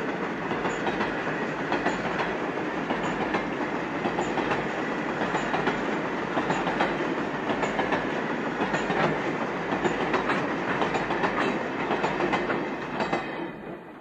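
Loaded grain hopper wagons rolling past, their wheels clacking over the rail joints in a steady stream of clicks and rumble. The noise fades away near the end as the last wagon passes.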